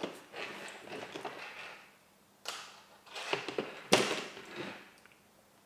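Gel blaster gearbox shell being split and handled by hand: a scraping rustle, then a few sharp clicks and knocks of the parts, the loudest about four seconds in.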